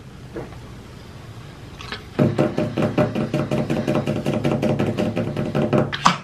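A man's drawn-out wordless vocal noise, held on one steady pitch with a rapid flutter through it. It starts about two seconds in, after a quiet stretch, and lasts about four seconds.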